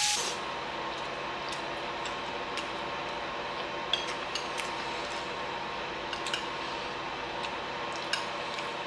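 Metal fork clicking and scraping against a ceramic bowl in scattered faint taps, over a steady room hum.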